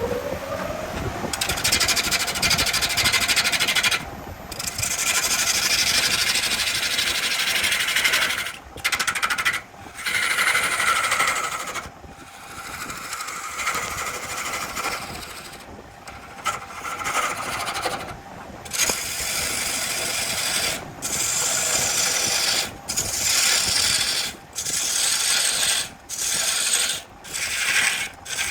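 Wood lathe spinning a log while a turning tool cuts into the wood, a loud scraping hiss. A short rising whine at the start as the lathe spins up; the cutting noise stops and restarts abruptly many times, every second or so near the end.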